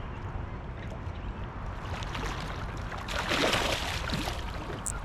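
Water splashing and sloshing against a kayak, heaviest for about a second midway through, over a steady low rumble.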